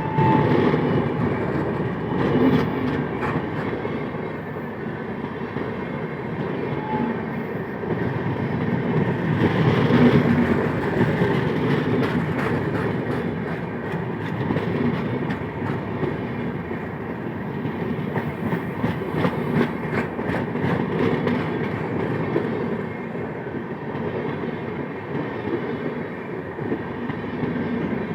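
Passenger train rolling past slowly under a speed restriction for bridge works, its coach wheels clicking over the rail joints above a steady rumble.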